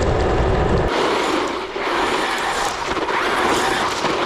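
XLF X03 brushless-motor RC monster truck driving fast over dirt and gravel, its tyres churning and throwing grit. For about the first second heavy rumble from a camera riding on the car sits under it.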